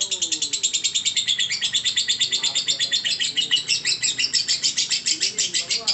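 Lovebird in its long continuous chattering song ("ngekek"): a rapid, unbroken run of short high chirps repeated many times a second without a pause.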